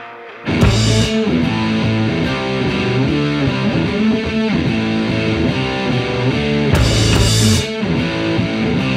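Background rock music with distorted electric guitar, coming in loud about half a second in after a quieter lead-in.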